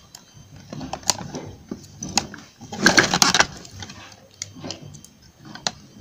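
Handling of a charger cable and its connector board held in a metal clip: scattered clicks and taps, with a dense rattling scrape about three seconds in.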